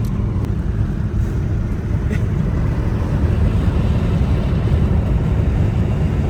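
Steady low rumble of a car on the move: road and wind noise with no clear engine note.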